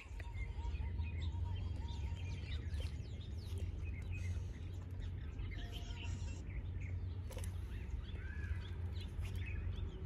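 Many small birds chirping and twittering, short high calls coming thick and fast, over a steady low rumble.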